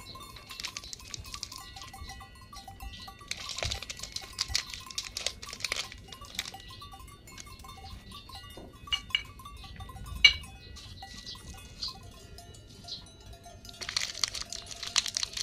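Small foil Maggi seasoning packet crinkling and rustling as fingers handle and tear it open, in two bouts, a little after the start and again near the end, with a single sharp tap about ten seconds in.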